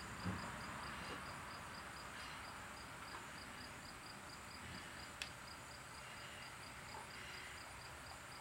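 A cricket chirping steadily, a high-pitched pulse about four times a second, over faint background hiss. A low thump comes just after the start and a sharp click about five seconds in.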